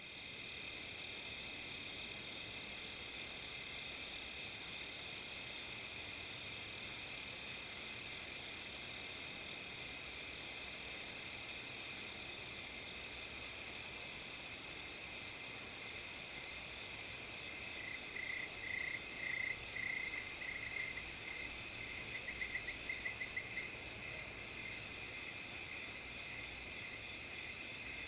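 Steady chorus of autumn crickets, several insects trilling at different high pitches at once, one of them in a fast, even pulse. From about 18 to 23 s a nearer insect joins at a lower pitch in short chirps.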